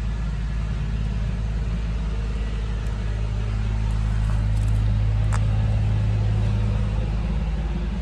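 An engine idling steadily, a low even hum that swells a little in the middle, with a couple of faint clicks.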